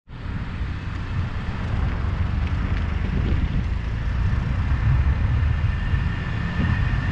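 Car driving along a city road: steady tyre and road noise with a low rumble of wind buffeting the camera's microphone. A faint steady high whine comes in during the second half.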